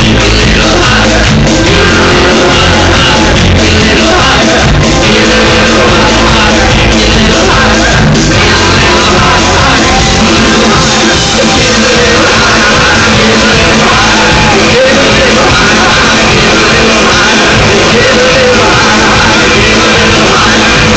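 Live band playing loud, dense rock music with vocals, steady and without a break.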